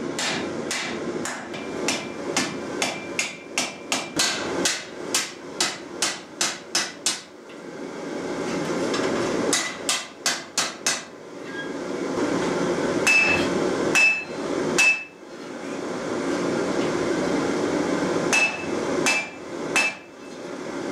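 Hand hammer striking the red-hot iron tang of a cleaver on an anvil as it is reforged: runs of quick blows, about two to three a second, broken by pauses, with several of the later blows ringing out. A steady rushing noise fills the gaps between the runs.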